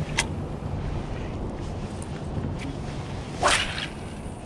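A fishing rod whipping through the air on a cast: one short, sharp swish a little past halfway.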